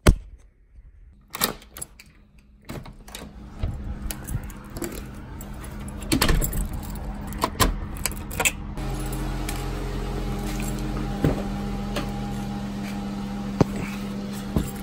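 Keys jangling and clicking as a front-door deadbolt is locked with a key, then, about nine seconds in, a car engine idling steadily, heard from inside the cabin.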